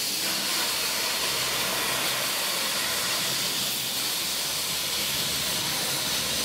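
Steady hiss of steam escaping from 1881 Baldwin steam locomotive No. 340, venting low around its cylinders.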